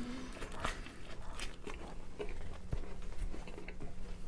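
A person biting into a slice of pepperoni pizza and chewing it close to a lapel microphone, with many small crunches of crust.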